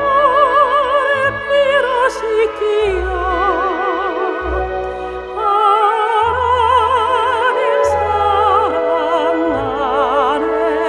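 Amateur soprano singing a slow gospel song in long held notes with wide vibrato, over an instrumental accompaniment with a steady bass.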